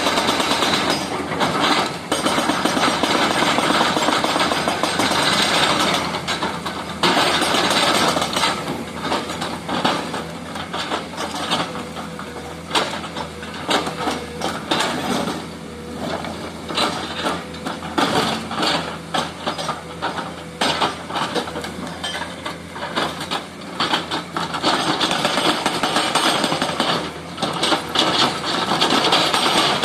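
Hydraulic breaker on a Komatsu excavator hammering in long runs of rapid blows, with a few short breaks between runs.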